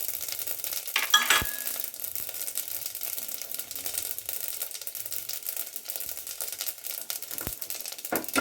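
Mustard seeds and dried red chillies sizzling and crackling in hot ghee and oil as a tempering. There is a short ringing metal clink about a second in and another near the end.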